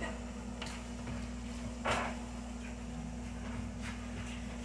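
Plastic packaging of a store-bought graham cracker pie crust being worked open: a faint click early on and a short crinkle about two seconds in, over a steady low hum.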